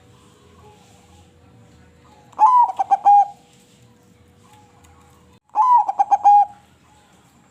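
Zebra dove (perkutut) singing two song phrases, about two and a half and five and a half seconds in, each a quick rising note followed by a fast string of short coos.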